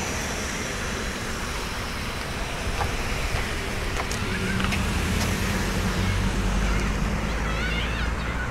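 Road traffic noise: cars driving past on a city road, with a steady low rumble that grows a little louder in the second half as a car passes close by.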